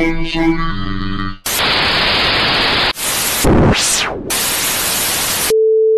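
Edited-in static sound effect: bursts of TV-style white-noise hiss with a sweep dropping and rising through it, after a brief snatch of music, ending in a steady electronic beep tone near the end.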